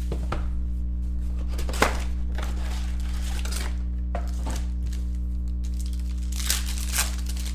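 Plastic wrapping on a sealed trading-card box crinkling and tearing as it is cut and pulled open, with a few sharper crackles, over a steady low electrical hum.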